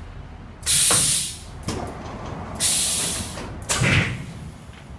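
Pneumatics of a Linh Son glass cutting machine hissing out compressed air in two bursts of about a second each, each starting with a sharp click, with a knock near the end.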